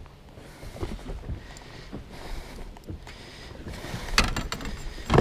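Low wind rumble on the microphone over an inflatable boat on the water, with scattered light knocks of handling, a cluster of sharp knocks about four seconds in and one more near the end.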